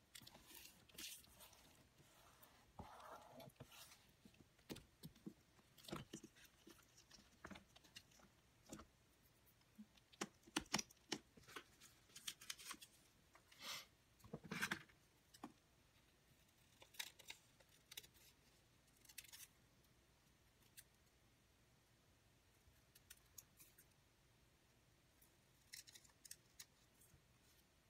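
Faint paper-craft handling sounds: scattered snips, clicks and rustles of paper pieces being cut and moved about, with a quiet spell in the last third.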